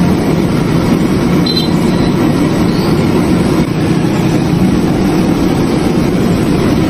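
A steady, loud low roar with no rhythm or breaks.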